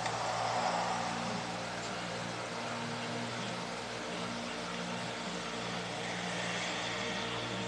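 Steady low hum of city traffic ambience, a little louder in the first second.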